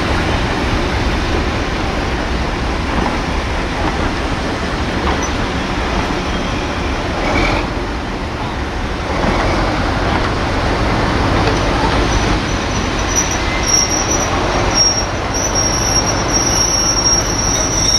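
Passenger coaches rolling slowly past with a steady rumble of wheels on rail. A high-pitched wheel squeal sets in faintly and grows loud in the last few seconds, as the flanges grind on the curving track.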